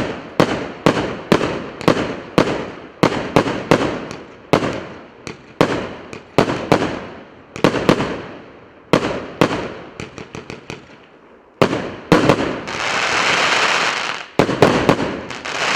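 A 100-shot, 1.2-inch firework cake firing: a steady run of sharp bangs about two a second. Near the end there are fewer bangs, broken by two long spells of dense crackling.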